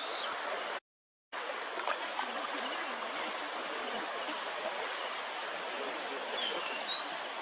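Steady rush of flowing water with insects droning in a continuous high buzz. The sound cuts out completely for about half a second near the start, and a few short high chirps come later.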